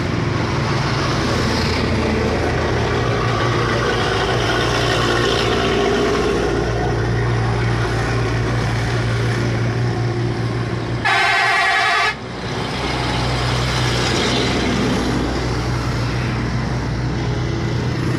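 Road traffic: a vehicle engine running steadily, and a vehicle horn sounding once for about a second around two-thirds of the way through, the loudest sound.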